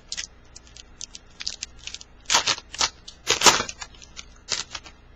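2010 Bowman baseball card pack's wrapper being torn open and crinkled, cards slid out: a run of sharp crackles, loudest in two bursts about two and a half and three and a half seconds in.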